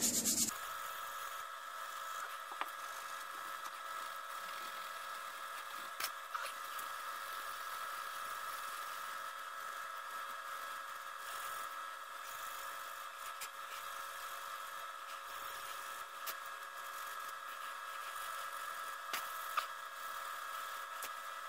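Polishing rub on the stained wooden gunstock stops about half a second in; after that a faint steady hum, with a few light knocks and taps as the gunstock is handled.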